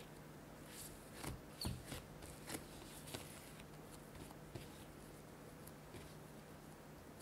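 Hands pressing a ball of bread dough flat on a bamboo cutting board and folding its edges back in: soft pats and taps of dough and fingers against the wood, several close together in the first few seconds, then fainter, over a faint steady low hum.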